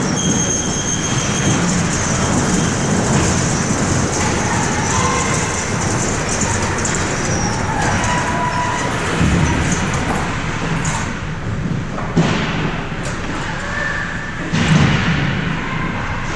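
Ice hockey rink din during play: a continuous wash of skates, crowd and arena noise, with a steady high whistle tone at the start and several sharp clacks of sticks and puck in the second half.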